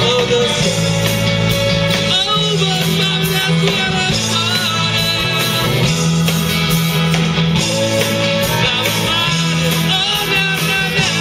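Live rock band playing, with electric guitars and keyboard over a steady beat and a lead voice singing.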